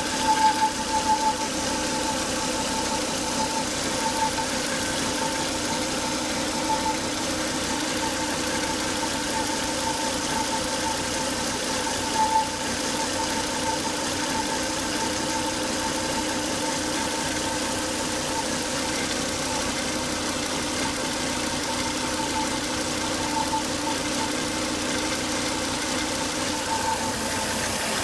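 Volvo S80 2.5T's turbocharged five-cylinder engine running steadily with a continuous high-pitched whine over it. This is the noise the owner links to abnormally high crankcase vacuum, a fault traced to a failed breather box (oil-trap filter).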